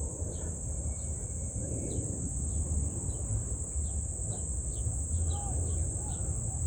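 Crickets trilling in one steady high-pitched drone, with short bird chirps repeating every second or so over a low rumble.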